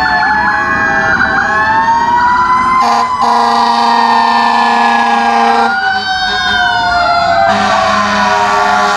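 Several fire truck sirens wailing at once, their pitches rising and falling out of step. Long steady horn blasts come in about three seconds in and again near the end.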